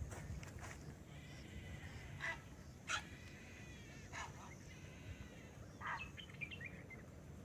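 Birds calling: several short harsh calls spaced a second or so apart, with two longer drawn-out pitched calls between them, over a steady thin high-pitched tone.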